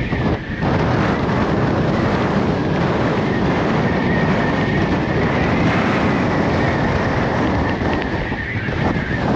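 Strong wind buffeting a body-worn action camera's microphone: a loud, steady rush, with a thin high whistle running through it.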